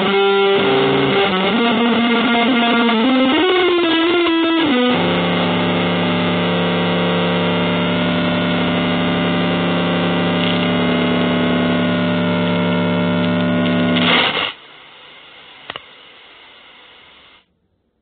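Distorted electric guitar through effects: bending, gliding notes for a few seconds, then a dense sustained chord held for about ten seconds that cuts off abruptly. Faint hiss with a single click follows.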